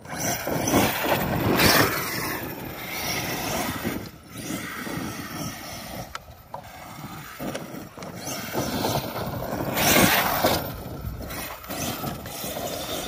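Arrma Kraton 8S RC monster truck driving hard over dirt and gravel: a noisy rush of tyres and grit in surges, loudest about two seconds in and again about ten seconds in, with wind on the microphone.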